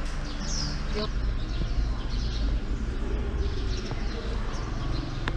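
Outdoor ambience: a steady low rumble with a few short, faint bird chirps and distant voices.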